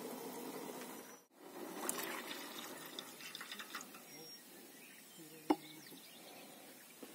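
Tea bubbling in a pot on a portable gas stove as milk is poured in, with a single sharp clink about five seconds in.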